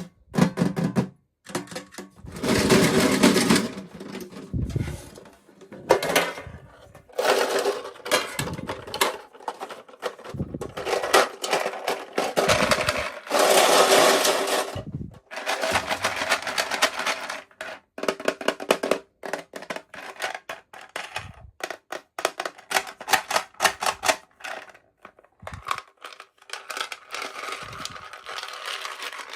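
Plastic and paper packaging being handled and torn open by hand: bursts of crinkling and tearing with quick runs of small clicks and taps.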